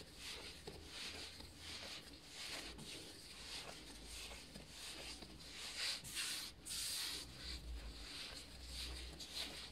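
Hands kneading dough on a floured granite countertop: a rhythmic series of soft rubbing and pushing strokes as the dough is pressed and folded against the stone.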